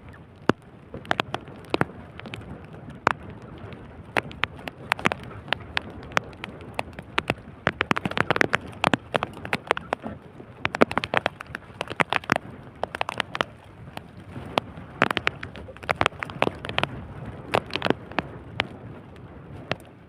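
Rain falling, with a steady hiss and many sharp, irregular taps of drops striking close by.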